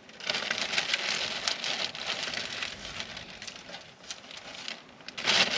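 Plastic bag crinkling and rustling as crumbed chicken wings are pulled out of it by hand. The rustling is strongest at first, eases off in the middle and picks up again near the end.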